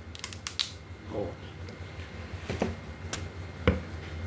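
Handling sounds of a freshly cut-open young coconut and a plastic pitcher on a stone countertop: a few light clicks and taps, then a single dull knock near the end.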